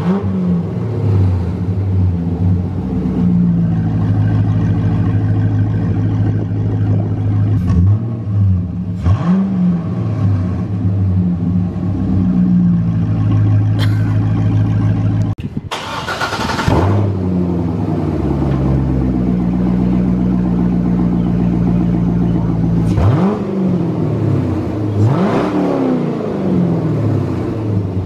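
C6 Corvette's V8 running through open exhaust pipes with the mufflers cut out: a loud steady idle, with the throttle blipped several times, each rev rising and dropping back quickly.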